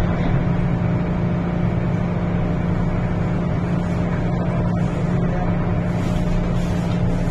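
Steady hum and rumble inside an MTR M-Train passenger car with its doors closed, as the train gets under way out of the station.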